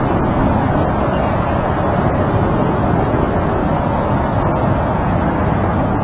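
Snowstorm wind blowing steadily, a dense rushing noise heaviest in the low and middle range, with no separate gusts or knocks standing out.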